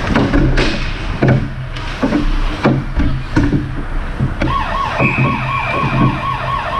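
Sharp knocks and clacks of hockey play on the ice, then about four and a half seconds in a wavering, siren-like wail that swoops up and down about three times a second, with a steady high whistle-like tone on top for about a second.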